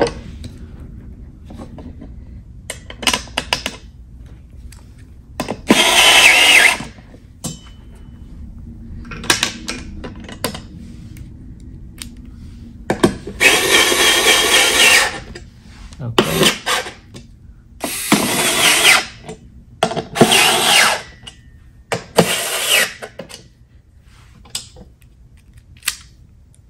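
A small cordless electric screwdriver runs in a series of short bursts, each one to two seconds long with pauses between, as it drives machine screws part-way into the metal brackets of a table frame.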